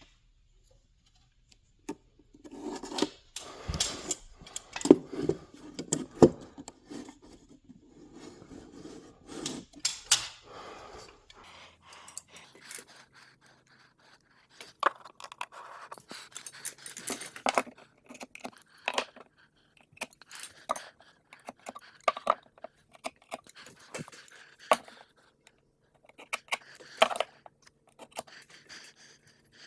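Irregular knocks, scrapes and metallic clinks of hand work with tools and hardware, busiest in the first half and then scattered.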